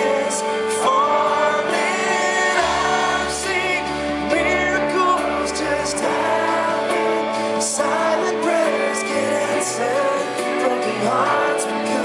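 Live rock band playing: a man singing lead over electric bass, keyboard and drums, with cymbal crashes.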